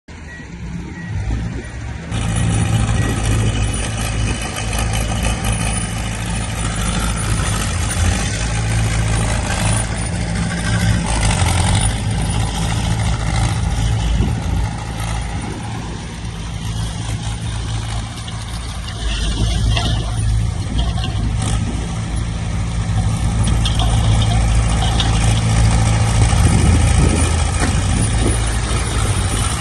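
Diesel engine of heavy earthmoving equipment running steadily, its low drone swelling and easing a little as the load changes.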